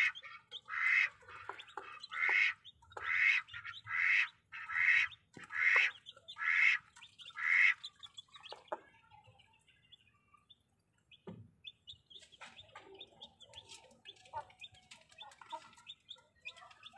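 A broody Bangkok game hen gives about nine loud, harsh squawks, roughly one a second, then falls quiet. Faint, high peeping from her newly hatched chicks follows.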